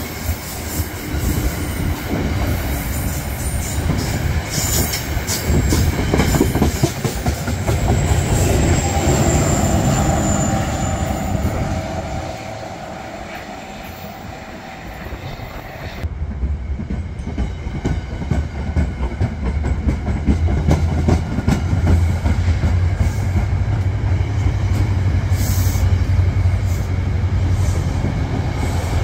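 NJ Transit single-level passenger coaches rolling past at close range, wheels rumbling and clicking over the rail joints, with a brief high squeal about eight seconds in. The sound eases off about twelve seconds in, then cuts to another train's coaches passing with a heavier low rumble.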